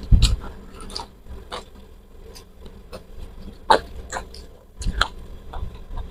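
Close-miked eating sounds: chewing, with scattered short crisp snaps and clicks as fingers pry open a roasted petai (stink bean) pod.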